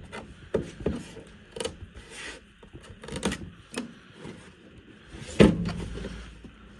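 Wooden instrument case being handled in a steel tool-chest drawer: scattered small clicks and scrapes, then a heavy knock a little over five seconds in as the case bumps the drawer, followed by a brief low sliding rumble.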